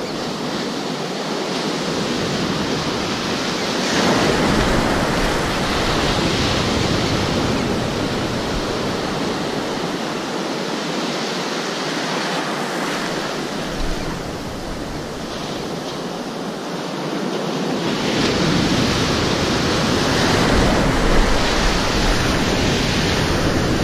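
Shallow beach surf: breaking waves and foamy wash rushing steadily, swelling louder about four seconds in and again near the end.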